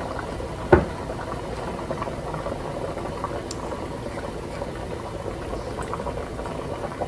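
Broth bubbling and sizzling around a seared pot roast in a hot enameled Dutch oven: a steady simmer full of small pops. A single sharp knock sounds about a second in.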